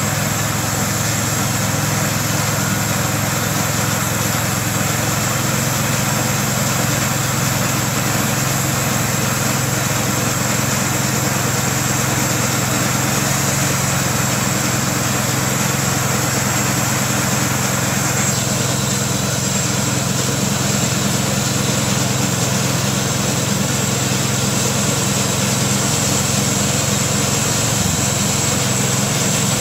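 Small air-cooled gasoline engine driving a homemade bandsaw mill, running steadily under load while the band blade cuts through a black walnut log. The higher hiss over the engine thins out about two-thirds of the way through.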